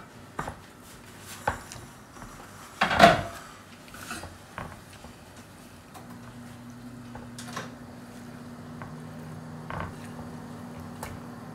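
A silicone spatula stirring raw shrimp in a ceramic dish, with scattered knocks and scrapes of the spatula against the dish, the loudest about three seconds in. From about six seconds in, a low steady hum runs underneath.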